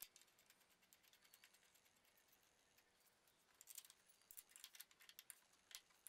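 Near silence, then from about halfway in a scatter of faint, light metallic clicks as the rear brake caliper's fixing bolts are put back in and a hand tool is set on them.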